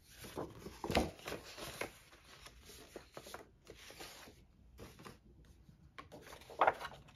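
Sheets of card and patterned paper rustling and sliding on a table as they are handled, with a sharp knock about a second in and another loud rustle near the end.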